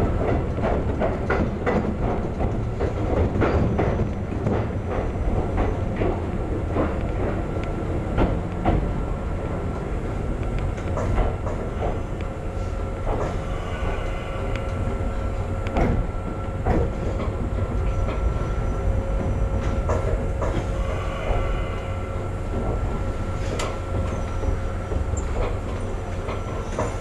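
Cab interior of a former Tokyu 7000-series stainless electric train rolling slowly into a terminal platform: a steady running rumble with wheels clicking over rail joints and points, the clicks coming thick in the first half and thinning as the train slows to a stop. A faint thin steady tone joins the rumble from about halfway.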